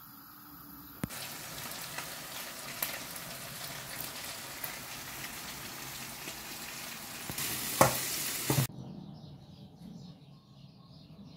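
Steady sizzling and crackling of food frying in hot oil, with a few sharp knocks near the end, then it cuts off suddenly.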